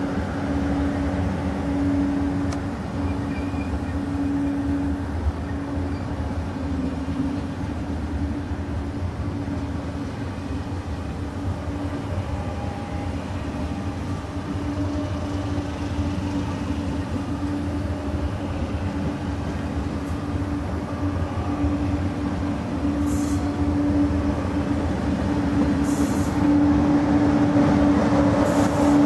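TGV Atlantique high-speed train rolling past at low speed: a steady rumble of wheels on rail with a constant hum, getting louder near the end, and two brief high hisses near the end.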